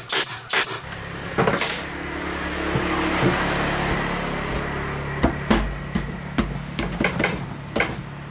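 A pneumatic nailer fires a few quick shots into the MDF box, then a steady low machine hum sets in. About five seconds in come several sharp knocks and taps of hands handling the wooden box.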